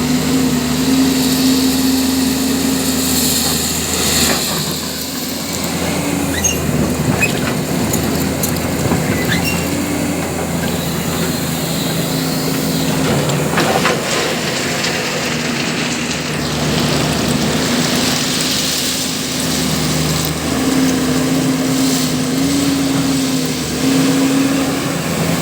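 JCB JS205 tracked excavator's diesel engine running under working load. Its pitch steps up and down a little as the hydraulics take load. There are a few short knocks and clanks.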